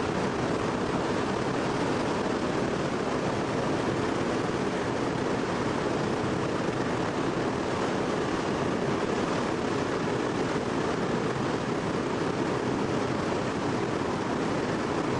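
The four Wright R-1820 Cyclone radial engines of a B-17G bomber running steadily, heard from inside the fuselage as an even, unbroken rumble mixed with rushing airflow.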